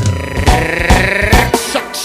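Instrumental stretch of an electronic Brazilian dance track, with a pounding kick drum and a synth sweep that drifts slightly down over the first second and a half, with no singing.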